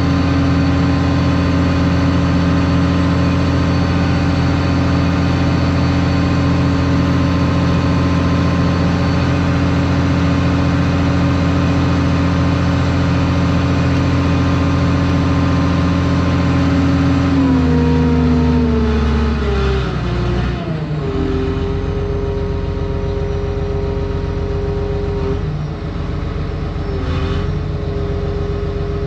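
Heavy diesel engine of the tile-plowing machine running at steady high revs, then winding down to a lower steady speed about eighteen seconds in, with two brief dips near the end.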